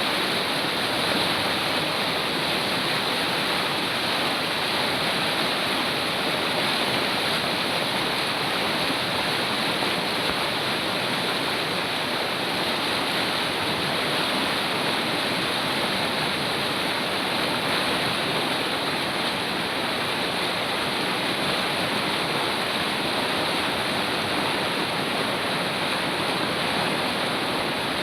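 Nepali river or stream water rushing steadily, a loud unbroken rush of flowing water.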